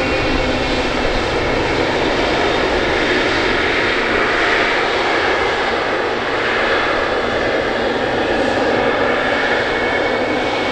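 Boeing 777F freighter's twin GE90 turbofan engines running as the aircraft turns onto the runway: a steady jet noise with a faint high whine.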